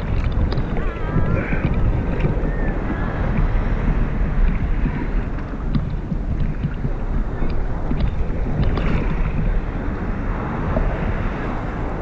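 Choppy sea water lapping and splashing around a camera bobbing at the surface, with wind buffeting the microphone in a constant low rumble.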